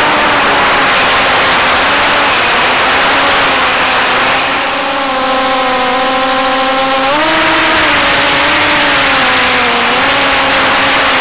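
Onboard-camera audio of a 6-inch FPV quadcopter in flight: its brushless motors and props make a loud, steady buzzing whine over heavy wind hiss, the motor pitch rising and falling with throttle. The first part is EMAX Eco 2306 1900kv motors; partway through it switches to the same quad on EMAX 2205 2300kv Redbottom motors.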